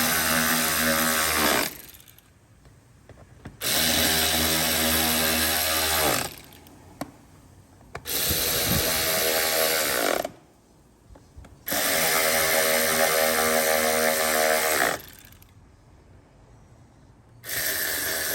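Electric power screwdriver driving the screws of a car's air filter housing lid home, running in about five short runs of two to three seconds each with pauses between, one per screw.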